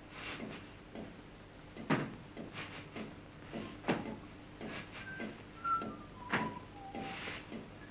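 Coal miner's pick striking the coal face three times, about two seconds apart, with loose coal scraping and rattling between blows. In the second half come a few short whistled notes, stepping down in pitch.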